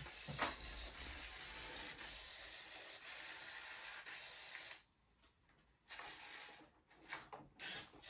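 Steady rubbing or rasping noise for about five seconds, stopping suddenly, then a few short scrapes near the end.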